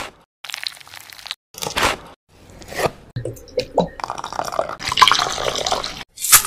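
Close-miked food-prep sounds in short separate bursts: a knife cutting through raw chicken drumsticks on a cutting board, then liquids poured into a glass bowl, with a sharp click near the end.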